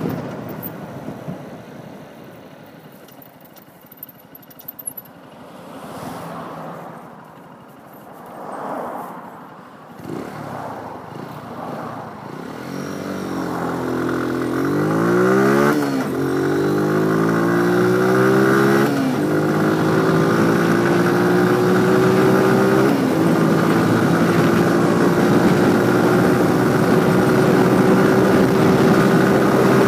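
Motorcycle engine heard from on board the bike: running quietly at low revs for the first dozen seconds, then accelerating hard through the gears, its pitch climbing and dropping back at two gear changes about halfway through, before settling into a steady, slowly rising cruise.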